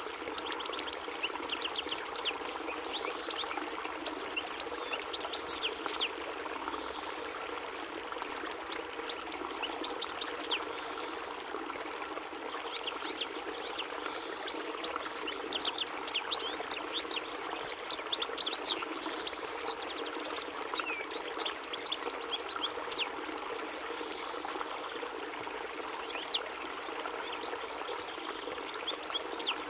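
European goldfinch singing: runs of rapid, high twittering notes in several phrases broken by short pauses, over a steady background hiss.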